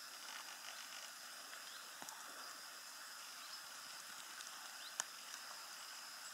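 Quiet outdoor ambience: a faint, even hiss with a thin steady high tone, a few soft ticks, and one sharp click about five seconds in.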